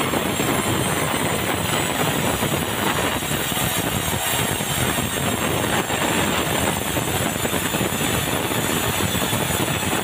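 Sawmill saw running steadily while a large squared red meranti log is fed past it on the carriage, a dense, constant machine noise.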